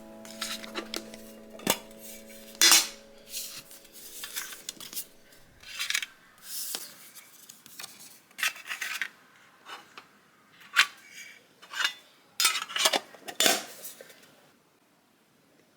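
Dishes and cutlery being handled: about a dozen separate clinks and clatters at uneven intervals, the loudest a few seconds in, stopping about a second before the end.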